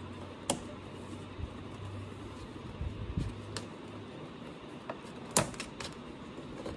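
Hands fitting plastic and rubber intake parts in a car's engine bay make scattered light clicks and knocks, the loudest about five and a half seconds in. A faint low hum runs underneath.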